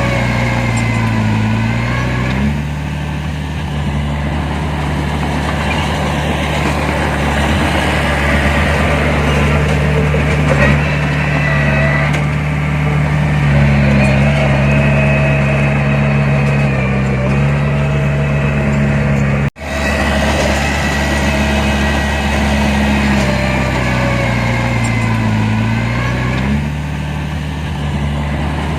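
Heavy diesel engine of earthmoving machinery running steadily, its pitch dipping and rising several times as the load changes. The sound cuts out for an instant about two-thirds of the way through.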